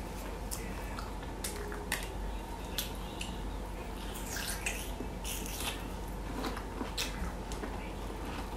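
Biting into and chewing a boiled bamboo shoot close to the microphone: a scatter of short, crisp clicks and mouth sounds over a faint steady low hum.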